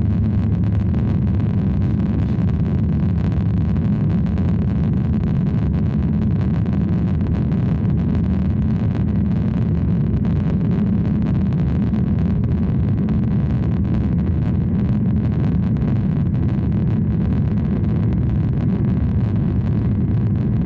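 Steady low rumble inside the cabin of a Boeing 737-800 rolling on the runway, the noise of its CFM56 engines and the airframe heard from a window seat over the wing.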